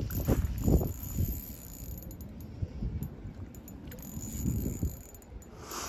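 A light spinning reel working as a hooked peacock bass is played, with splashes from the fish thrashing at the surface, most in the first second.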